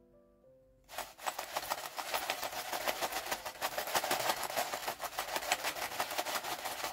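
Crispy coloured french fries being shaken and tossed in a glass bowl: a dense, rapid clatter of fries against the glass and against each other, starting about a second in.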